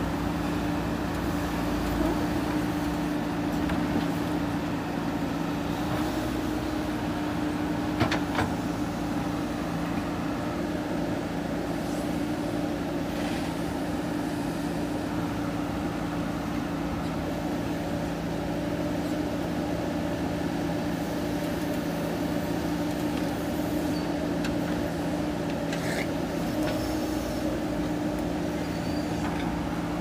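JCB 3DX backhoe loader's diesel engine running at a steady working speed while the backhoe digs, with a few short knocks, the loudest about eight seconds in.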